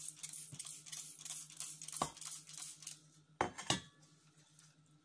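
Handling noises: about three seconds of quick crackly rustling as a spray bottle and ceramic mug are moved about over a plate of wheat grain. Then three hard knocks, one about two seconds in and two close together a second and a half later, as things are set down on the table.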